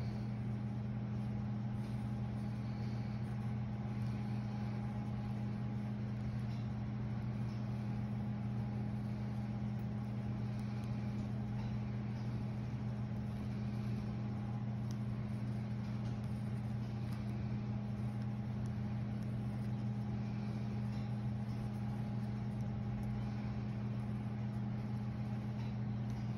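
Steady low hum of room machinery, with faint scratching of a pencil tracing on tracing paper.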